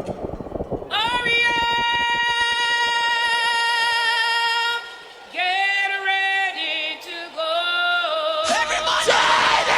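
A solo singing voice holding one long note with vibrato, then singing a shorter phrase of notes stepping up and down in pitch, played loud over a sound system; a noisy burst of crowd sound comes in near the end.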